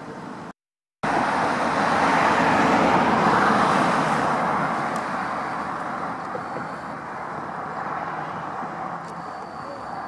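Road traffic noise: a passing vehicle's rush swells to a peak a few seconds in and slowly fades away. It follows a brief drop to silence near the start.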